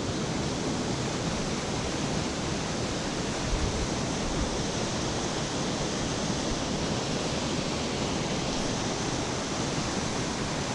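Creek water rushing steadily, an even hiss with no let-up.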